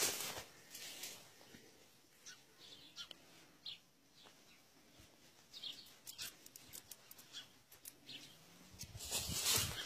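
Small birds chirping now and then, with scattered soft clicks. A loud rustle of handling near the end.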